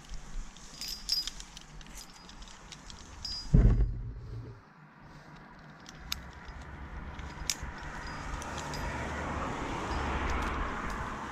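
Metal climbing hardware clinking and jingling as the climber handles his ropes and harness gear, with one loud thump about three and a half seconds in. In the second half a rushing noise swells and fades.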